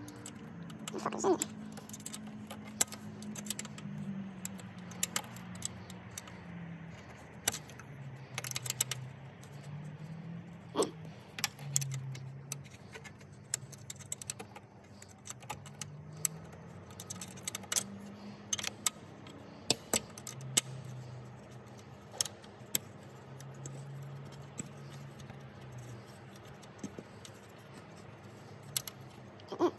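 Small metal hand tools and fasteners clinking and rattling as hardware is worked loose by hand: scattered sharp clicks and clinks at irregular intervals.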